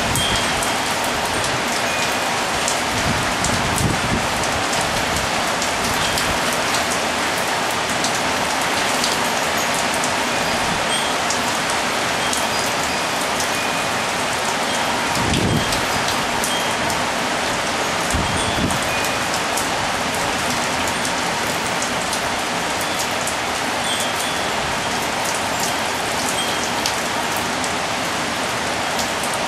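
Steady rain shower falling on hard surfaces, an even dense hiss of drops. A few faint, brief high chime notes from wind chimes sound here and there.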